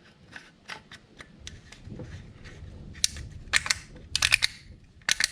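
Engine oil filler cap being put back on and screwed down by hand: scattered small clicks, a few short scraping sounds about three to four seconds in, and a sharp double click near the end.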